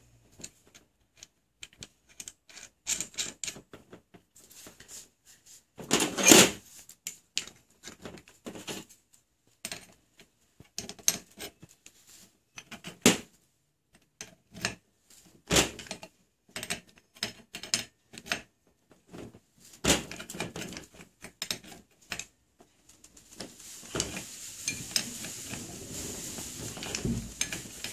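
Steel combination spanners clinking, clacking and scraping on the collet nut of an electric mushroom drill as the collet holding the bit is tightened: irregular metal clicks, one louder knock about six seconds in, and a few seconds of steady scraping near the end.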